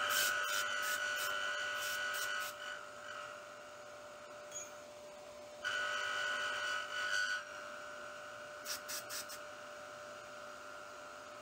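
Compressed-air blow gun hissing with a whistling tone in two bursts, the first lasting about two and a half seconds and the second starting about six seconds in, then a few short puffs, blowing wood chips out of a deep mortise. Under it the Bridgeport milling machine runs with a steady hum as its router bit cuts the wood.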